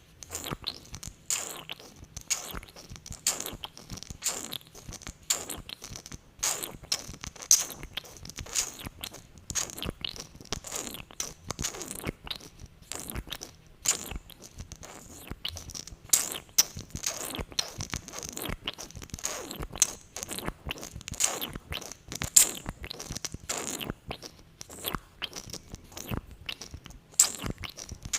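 Close-miked sticky lip-gloss mouth sounds: glossy lips smacking and pulling apart over and over in quick, irregular wet clicks.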